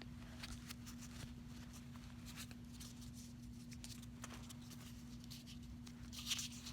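Faint rustling and small plastic clicks of foam darts being handled and gathered, over a steady low hum, with a slightly louder rustle near the end.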